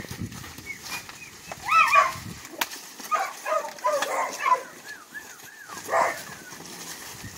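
Short, high-pitched animal calls in several bursts, loudest about two seconds in, with a run of small rising-and-falling cries near the middle.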